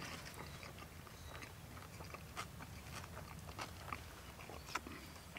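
Faint chewing and small crunches of a person eating a crunchy taco of fried gator and cabbage, in scattered soft bites.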